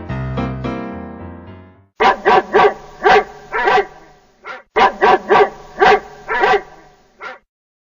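Dog barking in two runs of quick barks, starting about two seconds in and again about five seconds in, after a piano tune fades out.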